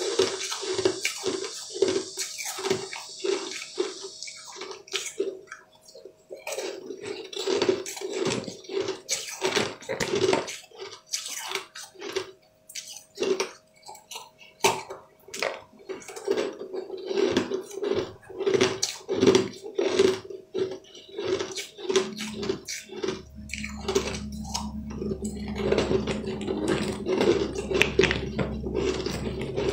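Close-up crunching and chewing of sugar-crusted jelly candy balls: many sharp crackling crunches as the crystal crust breaks, with a soft chewing thud a couple of times a second.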